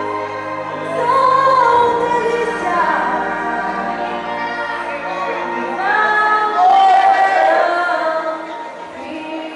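A woman singing a gospel song over instrumental accompaniment, her melody rising and falling over a steady band backing.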